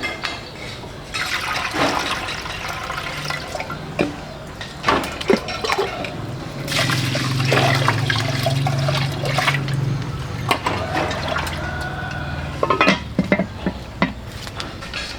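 Water running and splashing, with scattered knocks and clatters throughout and a heavier, fuller flow in the middle of the stretch.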